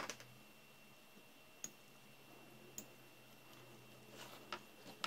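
NiCd battery cells being picked up and set down on a workbench: a few light, scattered clicks and taps, with a small cluster near the end.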